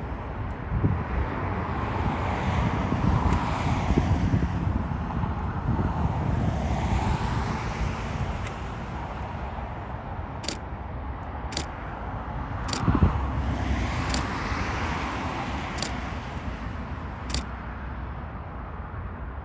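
Freeway traffic noise, cars swelling past one after another, with some wind on the microphone. A few sharp high ticks come in the second half.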